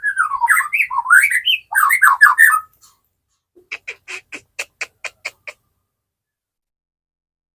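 White-rumped shama singing: a quick warbled phrase of gliding notes, then a fast run of about ten short, sharp notes.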